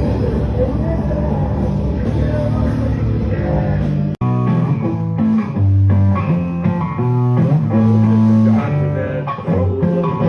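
Rock music with electric guitar and bass guitar playing. The sound cuts out for an instant about four seconds in, then clear held bass and guitar notes carry on.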